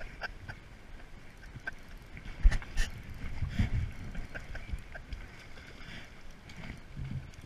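Shimano Symetre 1000 spinning reel being cranked to retrieve line, with light scattered ticks from the reel and one sharp click about two and a half seconds in. Low wind and handling rumble on the microphone underneath.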